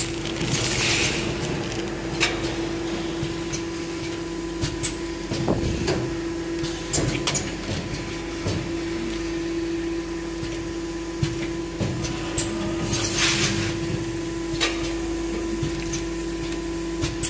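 Given-bag doypack packing machine running: a steady hum with scattered clicks and knocks from its mechanism, and two short sharp hisses of compressed air from its pneumatic cylinders, one about half a second in and one about two-thirds of the way through.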